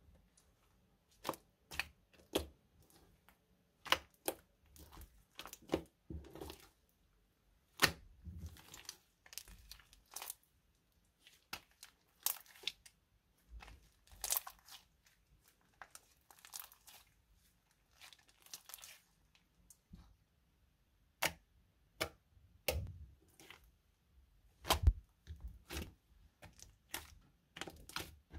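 Bubbly slime being pressed, squeezed and stretched by hand: irregular sharp pops and clicks, with short softer rustling sounds between.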